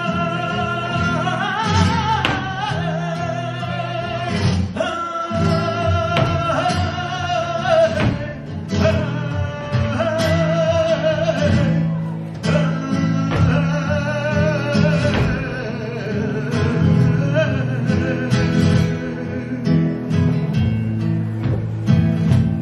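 Flamenco music: a singer's wavering vocal line over guitar, with sharp percussive strikes throughout.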